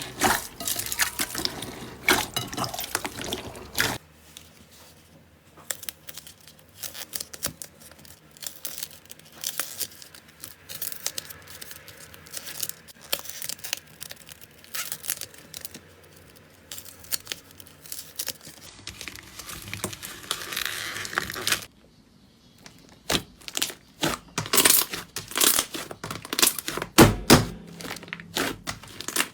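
Slime being squeezed, poked and stretched by hand, making crackling and popping clicks. It is quieter for a long stretch in the middle and ends in a dense run of louder crackles.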